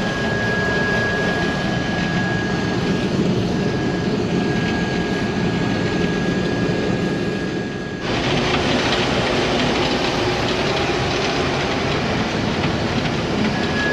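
Case IH 1480 axial-flow combine running under heavy load as a thick crop of wheat feeds in, a steady machine din with a thin high whine. About eight seconds in the whine drops out and the noise suddenly changes; the machine is taking in more than it can handle, and a plug follows.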